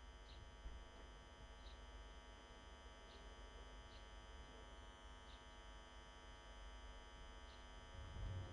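Near silence: a faint steady electrical hum, with a small bird giving short high chirps about once a second. A low rumble rises near the end.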